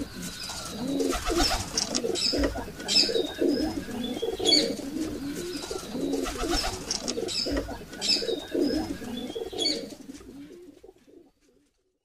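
Doves cooing, with small birds chirping higher up, fading out near the end.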